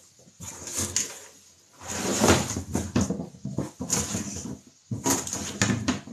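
Cardboard packaging scraping and rustling as a DeWalt shop vacuum is pulled up out of its box, with light knocks of the plastic vacuum and the box. It comes in several bursts with short pauses between them.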